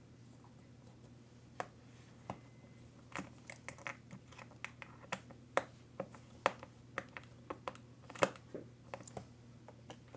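Irregular light clicks and taps of small plastic and metal RC truck parts, screws and hand tools being handled, a few at first and then several a second, over a faint steady low hum.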